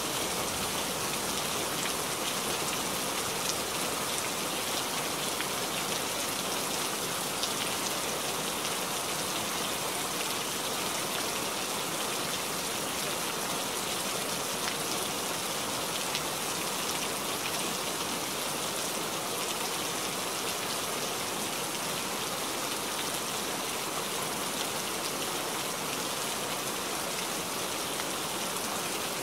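Steady rain falling, an even hiss of drops with no thunder.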